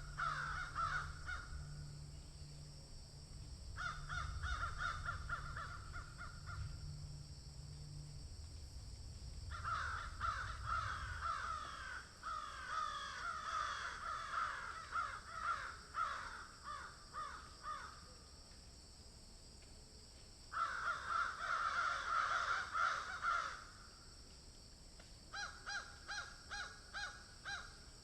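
Crows cawing in repeated bouts of quick, harsh caws with short pauses between them, several birds overlapping in the longest bout. Near the end comes a run of about eight evenly spaced caws.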